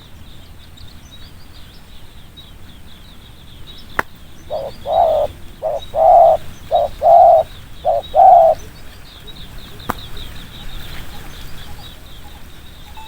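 Spotted dove cooing: a run of about eight low coos in short-long pairs over about four seconds, the fast 'thúc gù' call. Steady high chirping runs behind it.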